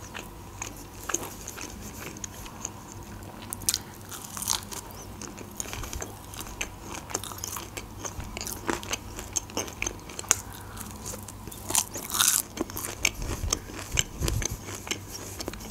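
Close-up eating sounds: crisp crunching bites and chewing of a breaded fried onion ring, a run of sharp crackles throughout.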